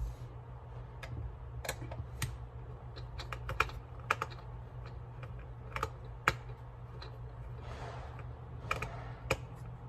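Small screwdriver and plastic headset housing clicking and tapping irregularly as screws are backed out of a BlueParrott B450-XT headset, over a steady low hum.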